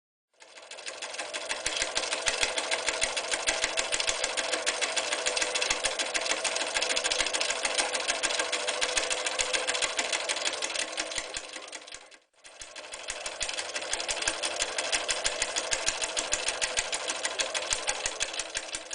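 Bernina Record 730 electric sewing machine stitching at speed with a rapid, steady clatter of needle strokes. It starts up just after the beginning, pauses for a moment about twelve seconds in, then runs again.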